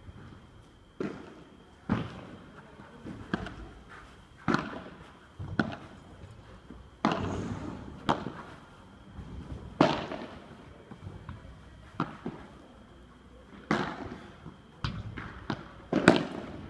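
Padel rally: the ball cracks off the players' padel rackets and bounces on the court in sharp, irregular pops, roughly one every second, a few with a short ringing tail.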